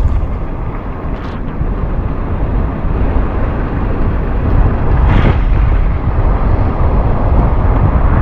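Strong wind rushing and buffeting the microphone with a deep rumble, swelling in a gust about five seconds in.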